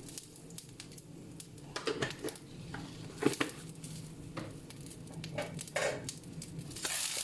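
Tempering in hot oil in a pan: a light sizzle of mustard seeds, dried red chillies and curry leaves, with scattered clicks and taps of a utensil against the pan. The sizzle gets louder near the end.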